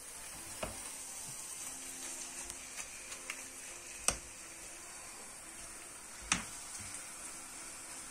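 Onion and minced-meat filling frying in a pan with a steady sizzle while a silicone spatula stirs it, with a few sharp knocks of the spatula against the pan, the loudest about four seconds in and again past six seconds.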